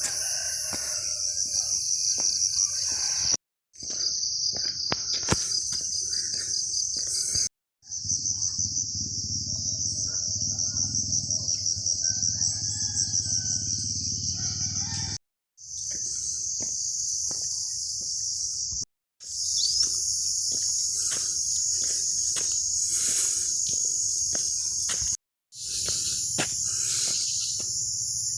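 Loud, steady, high-pitched chirring of insects, pulsing quickly, in several stretches that break off abruptly.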